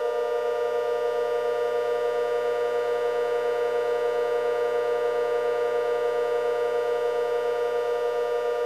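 Civil defense siren sounding a steady held chord of tones that neither rises nor falls, with a fast slight wobble in loudness.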